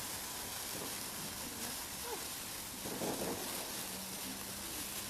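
A lit handheld sparkler fizzing with a steady hiss, and faint voices in the background.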